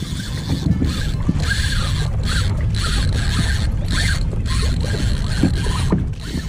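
Spinning fishing reel being cranked on a bent rod, its gears and ratchet clicking, over a low rumble of wind and water.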